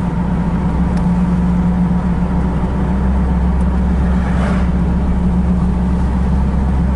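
Steady low drone of a car heard from inside its cabin, the engine running evenly with no change in pitch.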